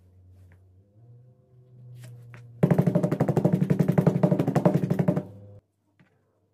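Rapid, evenly paced taps of a hammer face on glued leather on a hard work surface, a quick run of strikes lasting about two and a half seconds that stops abruptly, pressing the glued layers together.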